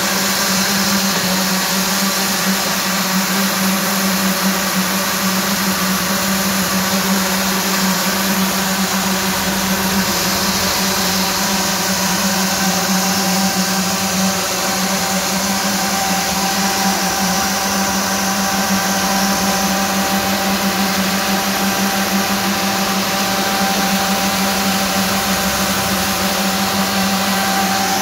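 A concrete paving machine's bank of electric motor-driven needle vibrators running steadily in fresh concrete, giving a continuous hum on one strong low tone.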